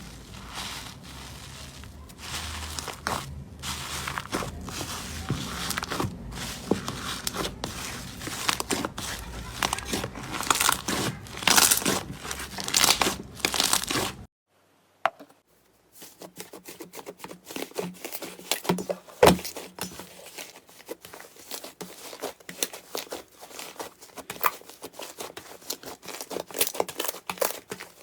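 Slime squished and pulled close to the microphone, with dense crackling and crinkling for about the first half. After a brief silence about halfway through it goes on as sparser, sharper clicks and pops.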